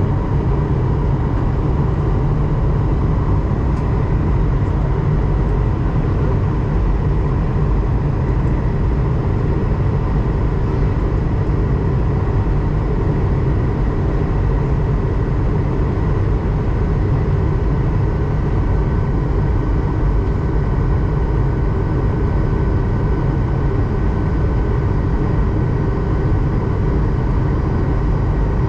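Steady in-flight cabin noise of an Airbus A220-100 airliner: a deep, even rumble of airflow and its Pratt & Whitney PW1500G geared turbofan engines, with faint steady tones above it. A higher tone joins about two-thirds of the way through.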